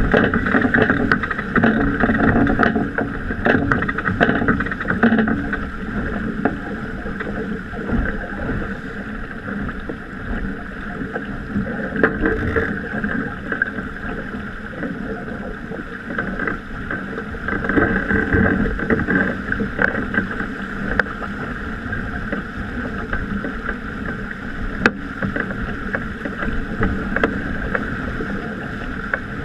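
Water rushing and splashing along the hull of a Mini 6.50 racing sailboat heeled and moving fast under sail, with wind buffeting the microphone. The rush is louder in the first few seconds, and a few single knocks come through.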